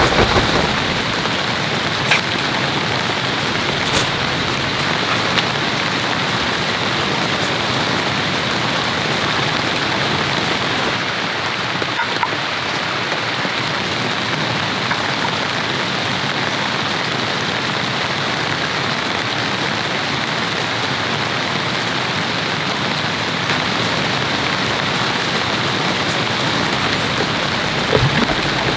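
Heavy rain falling steadily on a camping tarp and shelter: an even hiss, with a few louder drops tapping in the first few seconds. Near the end a plastic cooler latch clicks open.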